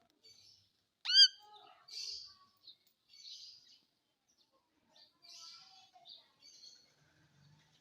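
Baby Indian ringneck parrot calling: one loud, sharp upward-sweeping squawk about a second in, followed by a series of short, raspy chirps.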